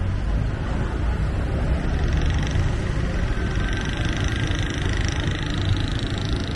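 Street traffic of motorbikes and tuk-tuks, a steady low engine rumble mixed with road noise. A faint higher hiss comes in about two seconds in.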